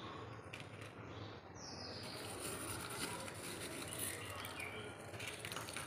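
Birds chirping over a steady background hiss, with a few light clicks and rustles as lumps of charcoal are set down on a dry leaf.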